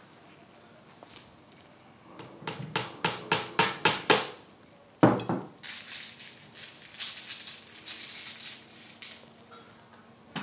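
A hammer tapping push pins into a picture frame: about seven quick taps, roughly four a second and growing louder, then one hard blow about a second later. After that comes a crinkling rustle of plastic sheeting.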